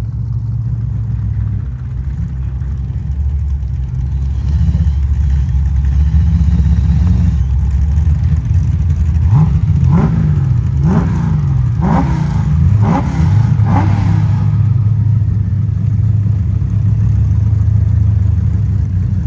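Drag-race car engine idling loudly, then revved in a run of about five quick throttle blips, each a rising rev, roughly a second apart, before settling back to a steady idle.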